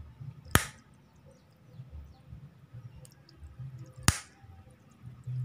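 Two sharp clicks about three and a half seconds apart, over a faint low hum.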